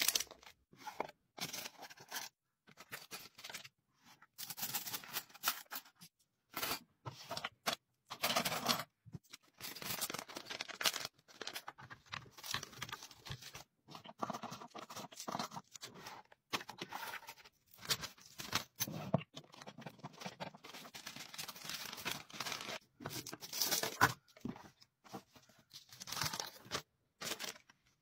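Plastic packaging and paper crinkling and rustling as they are handled during order packing, in short irregular bursts broken by brief silences.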